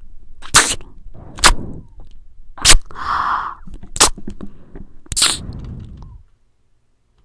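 A man chewing food with his mouth closed: sharp wet mouth clicks about once a second with softer squelching between them, stopping about six seconds in.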